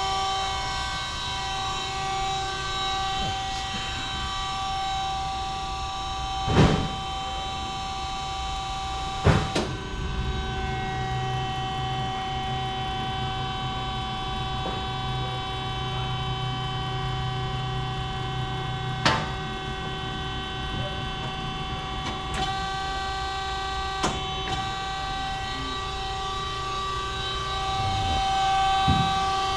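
Peerless VB-1820XL vertical band saw running: a steady hum made of several fixed tones, with a lower rumble joining in for a stretch in the middle. About five sharp knocks sound over it.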